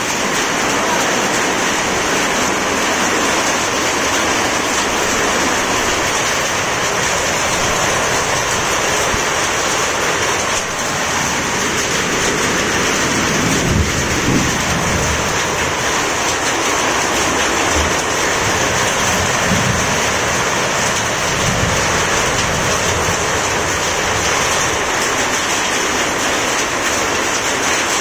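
Heavy rain mixed with hail falling, a dense steady hiss of drops and hailstones striking the ground and nearby surfaces. A few low rumbles come through about halfway.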